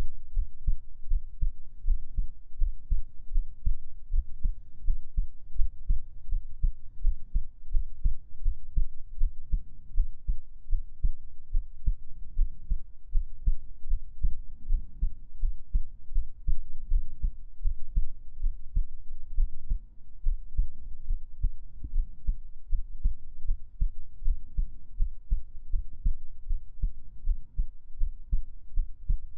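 A human heartbeat: low, muffled thumps in a steady, even rhythm.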